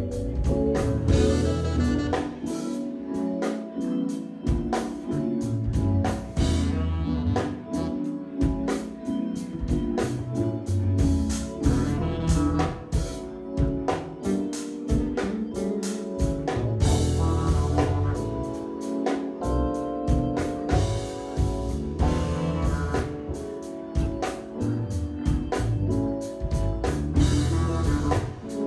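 Live band playing an instrumental funk jam: drum kit keeping a steady beat under heavy electric bass and held organ chords.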